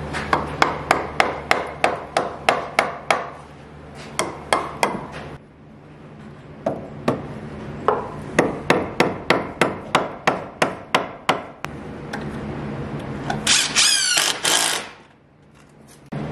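Claw hammer driving nails into the ash-wood 2x4 frame of a coop: two runs of quick blows, about three a second, with a short pause between them. A brief high rasping whir comes near the end.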